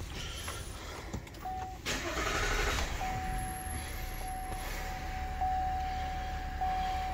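3.0-litre Duramax inline-six turbodiesel of a GMC Sierra AT4 pickup starting: a short crank catches about two seconds in, then settles into a steady idle. A steady high tone sounds over the idle from about three seconds in.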